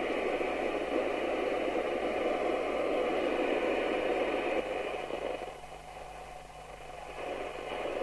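Hiss and static from a Maxcom 30E FM CB radio's receiver, playing through its speaker between transmissions. The hiss dips in level a little after halfway, then comes back.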